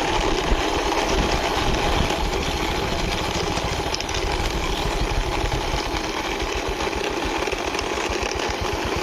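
An engine running steadily, with a rapid even pulsing throughout.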